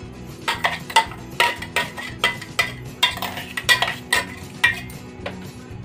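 Steel spoon scraping and clinking against a stainless steel mesh strainer as it works green mango pulp through, a quick run of metallic strokes, about three a second, easing off near the end.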